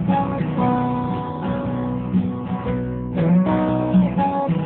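Instrumental break of a children's song: acoustic guitar strumming a steady, bouncy accompaniment with no singing.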